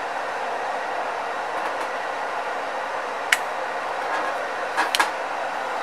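Hot air rework gun blowing steadily, reflowing solder to seat a relay on a circuit board. A sharp click about three seconds in and a quick cluster of clicks near the end.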